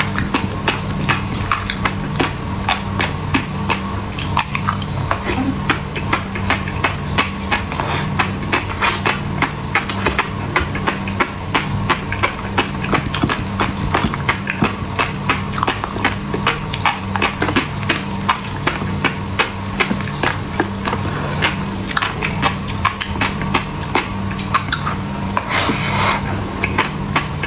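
Rapid light clicking and tapping of utensils against dishes, several strikes a second, over the steady hum of a refrigerator left running.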